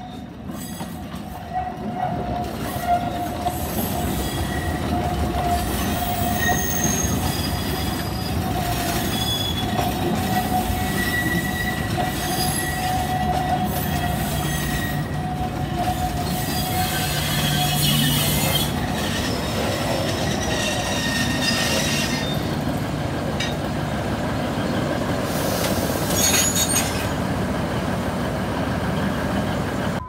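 Alishan Forest Railway diesel train passing close by on a curve of its narrow-gauge track. The diesel locomotive's engine runs under the rumble of the cars. The wheels squeal against the curved rails in thin high tones that come and go.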